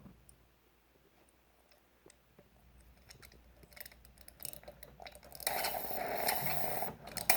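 Small clicks and handling from a Bosch built-in coffee machine, then about two-thirds of the way in its steam function comes on with a sudden loud, steady hiss, which dips briefly near the end before carrying on.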